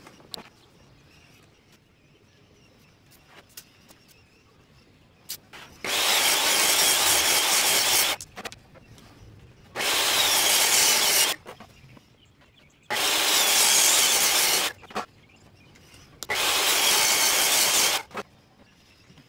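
Hitachi jobsite table saw cutting plywood, in four bursts of about two seconds each with short pauses between.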